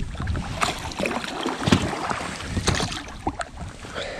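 Scattered knocks, rustles and clicks of hands working a fishing line against the rubber tube of an inflatable boat while a pike is drawn in alongside, over a low wind rumble on the microphone.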